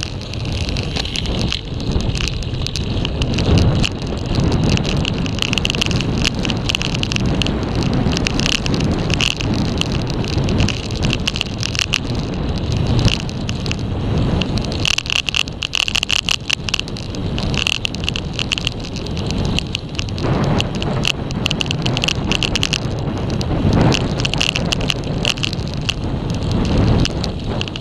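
Road bike descending at speed on rough tarmac: wind noise buffeting the camera microphone over the steady rumble of the tyres on the road, with frequent irregular rattling clicks as the bike goes over bumps.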